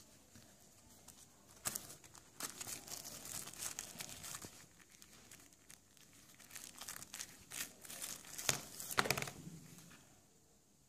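Thin plastic packaging film crinkling and rustling in irregular bursts, with sharp crackles, as a card phone in its wrap is handled and lifted out of a cardboard box. Loudest a little before the end, then it dies down.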